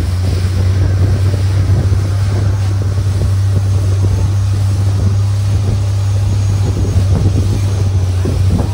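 Longtail boat's engine running steadily under way, a loud low drone, with rushing water and wind noise on the microphone.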